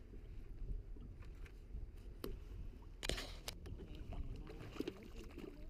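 Wind on the microphone and water moving against a small fishing boat, with scattered clicks from handling gear and a brief rushing splash about three seconds in.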